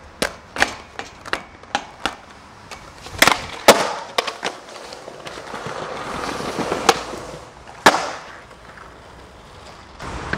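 Skateboard being ridden and popped: a quick series of sharp clacks from the board hitting the ground in the first two seconds, two loud slams a little over three seconds in, then wheels rolling over hard ground, growing louder, before a last hard smack near eight seconds.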